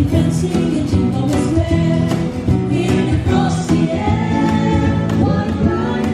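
A small vocal group singing together through microphones, several voices at once, with acoustic guitar accompaniment.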